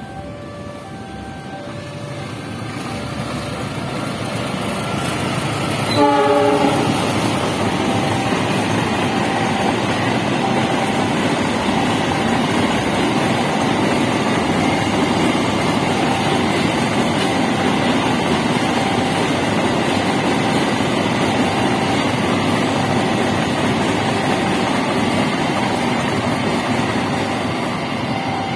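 Cement freight train approaching and passing over a level crossing. Its rumble builds over the first few seconds, the locomotive gives one short horn blast about six seconds in, and then the wagons run by on the rails with a steady loud rumble. The crossing's warning bell keeps ringing in short repeated tones underneath.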